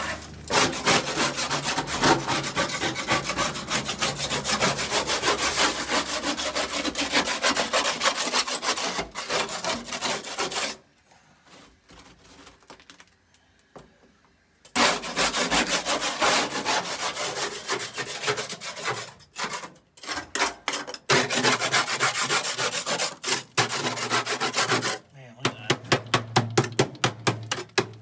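Rapid back-and-forth scraping strokes, scrubbing at the rusted cab floor of a 1974 Ford F-250. The scraping stops for a few seconds about eleven seconds in, then resumes, and near the end it slows to separate strokes at about four a second.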